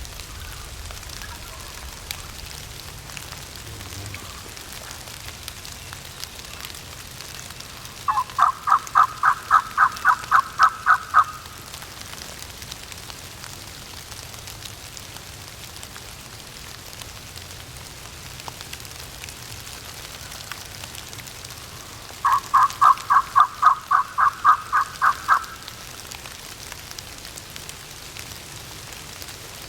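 Two series of turkey yelps, each about a dozen evenly spaced notes at roughly four a second, the second series coming about fourteen seconds after the first, over a steady background hiss.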